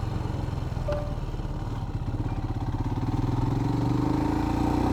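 Royal Enfield Himalayan's single-cylinder engine running under load as the motorcycle climbs, its revs and loudness rising a little from about three seconds in.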